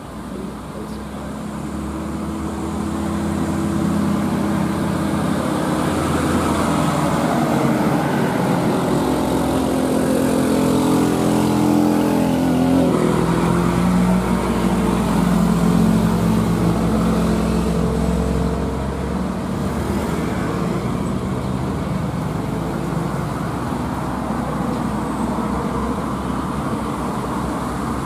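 Heavy diesel truck engines running as a Mitsubishi Fuso tractor-trailer approaches and passes at close range. The sound grows louder over the first few seconds, and the engine pitch climbs for several seconds before it changes about halfway through.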